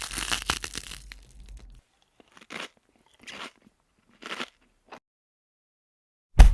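Crunching sounds: a crackling crunch that fades out within the first two seconds, then four short separate crunches, and a sudden loud hit at the very end.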